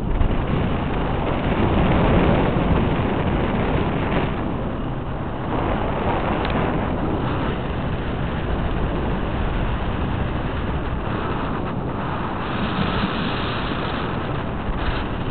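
Wind rushing over the microphone of a paraglider in flight: a steady, even noise with no tone in it.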